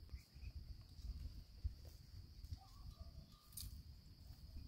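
Quiet open-air ambience: wind buffeting the microphone with an uneven low rumble, over a steady high insect drone and a few faint bird chirps.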